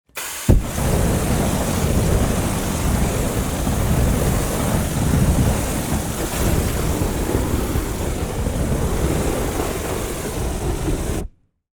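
Large fire roaring steadily with a deep rumble, with a sharp thump about half a second in. The roar starts and cuts off suddenly.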